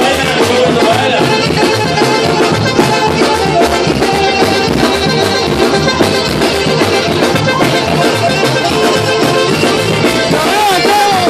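Mexican banda music played loudly without a break, in a dance tune for zapateado.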